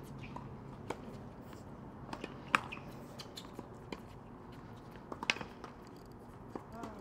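Tennis being played on an outdoor hard court: two sharp ball-on-racquet strikes about three seconds apart, the first about two and a half seconds in, with lighter taps and scuffs of feet on the court between them and a short squeak near the end.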